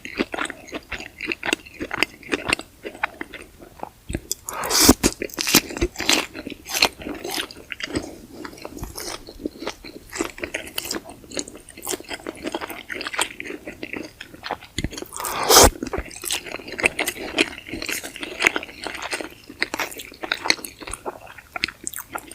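Close-miked chewing and biting of sausages with polenta: a steady run of wet mouth clicks and smacks, with two louder bites about five seconds and fifteen seconds in.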